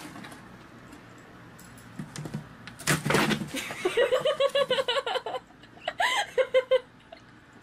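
A cat dropping into a cardboard box through a hole in its lid, a short noisy rustle and thump of cardboard about three seconds in. A person then laughs in quick bursts, twice.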